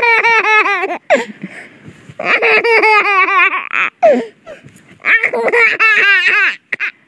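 A baby laughing hard: three runs of quick, high-pitched ha-ha-ha bursts, each about a second or more long, separated by sharp gasping breaths.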